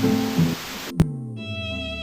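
Background music with held melodic notes. About halfway through there is a single sharp click, and after it the hiss under the music stops.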